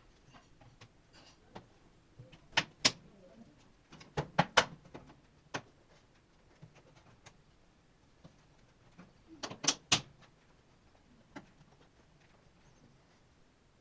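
Sharp clicks and knocks of laptop parts and tools being handled during a repair, coming in small clusters of two or three with quiet stretches between.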